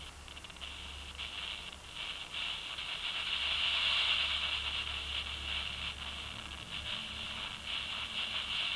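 Hiss from a cheap toy walkie-talkie's superregenerative receiver through its small speaker, with no signal coming in. The hiss flickers with crackly dropouts and swells to its loudest about halfway through before easing off.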